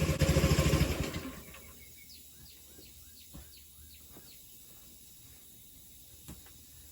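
A loud, rapid hammering from an impact wrench working the pulley bolt stops about a second in. After it come faint bird chirps, a quick run of short falling notes.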